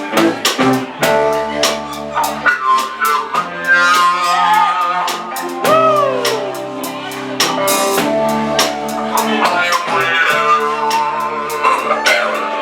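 Live band playing a blues-rock song: a drum kit keeps a steady beat under sustained guitar notes, with sliding, bent notes near the middle, one falling long about six seconds in.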